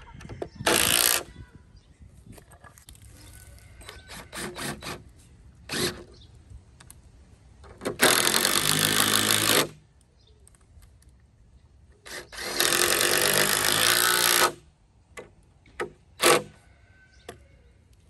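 DeWalt cordless impact driver driving screws into lumber: a short burst about half a second in, then two longer runs of one and a half to two seconds, with light knocks of boards and tool handling between them.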